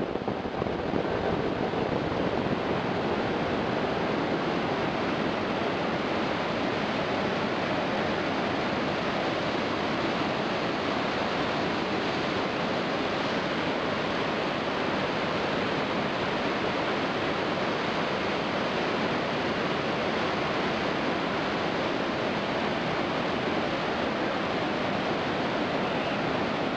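Steady, even rush of water with no changes, from the river and falls of Iguazu Falls.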